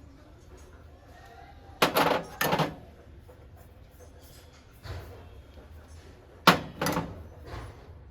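Objects being handled and set down, likely brass kitchenware: two pairs of sharp knocks, one pair about two seconds in and another near the end, with a few fainter taps between.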